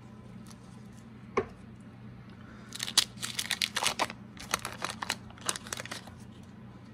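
A 1986 Fleer wax pack of baseball cards being torn open, the wrapper tearing and crinkling in a quick run of strokes lasting about three seconds. A single sharp click comes a little over a second in.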